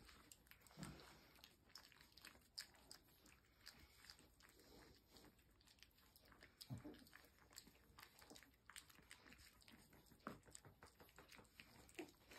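Faint, scattered crunching and clicking of Morkie puppies chewing puppy food from a plastic plate, with a few slightly louder clicks among them.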